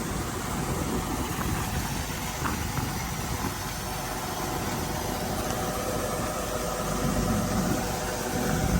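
Kubota DC-108X combine harvester running, a steady diesel engine drone with machinery noise, growing a little louder near the end.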